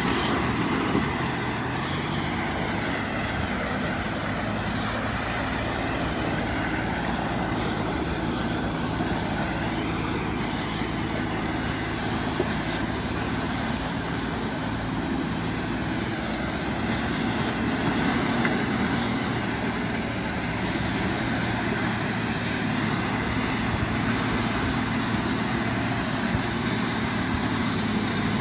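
Suzuki Grand Vitara's engine running under load as the 4x4 pushes through mud and shallow water, its note rising and falling, with the tyres splashing and churning through the mud.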